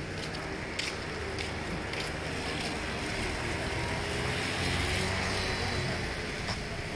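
Street traffic: a passing car's engine and tyre noise swells about four seconds in and eases off again, over a steady hum of town traffic.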